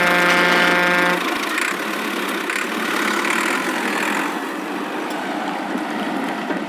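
Cartoon vehicle sound effects: a steady horn-like honk for about the first second, then a rough engine running.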